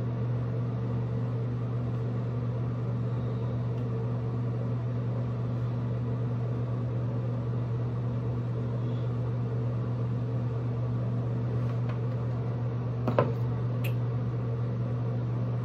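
Steady low electric hum of a fan or motor, with a single sharp click about thirteen seconds in.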